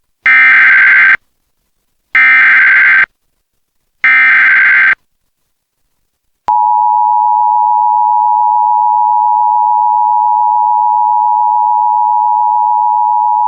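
Emergency Alert System SAME header: three loud bursts of digital data screech, each about a second long and a second apart, carrying the flood warning's coded header. About six and a half seconds in, the EAS two-tone attention signal (853 and 960 Hz together) starts and holds steady.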